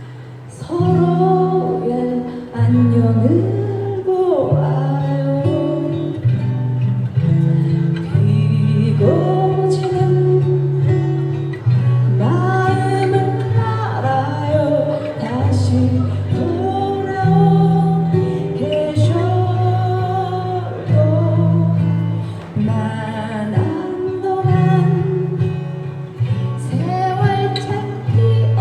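Live cover-song music: a melody line over plucked guitar and steady stepping bass notes from a backing track, with no lyrics sung.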